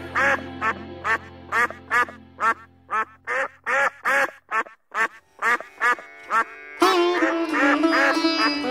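Mandarin ducks calling: a quick run of short calls, about three a second, each rising then falling in pitch, over background music. About seven seconds in, the music grows louder with a plucked-string melody.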